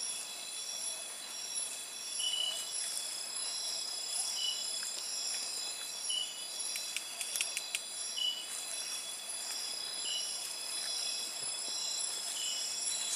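Night insect chorus: several insects call in steady high trills, and one repeats a short chirp about every two seconds. A few sharp clicks come about halfway through.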